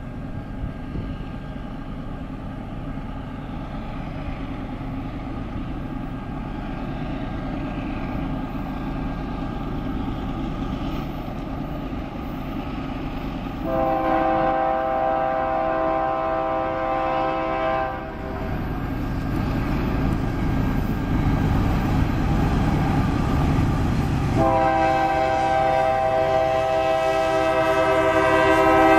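Approaching GE AC44CW diesel locomotive leading a loaded coal train, its low engine rumble slowly growing louder. Its multi-tone air horn sounds two long blasts: one of about four seconds halfway through, and a second starting near the end.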